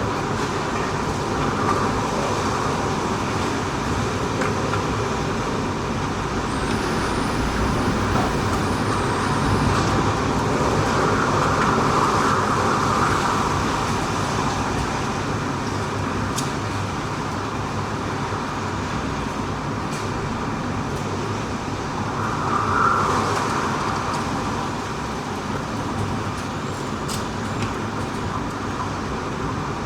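Typhoon-force wind blowing hard and buffeting the microphone, with a steady heavy rush that swells in stronger gusts twice, the second one short and sharp. A faint high whistle sounds briefly early on.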